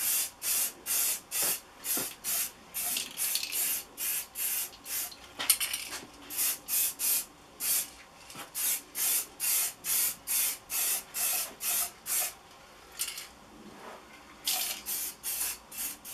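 Aerosol can of black spray paint spraying in short repeated hissing bursts, about two a second, with a short pause near the end, as a coat of paint goes onto metal.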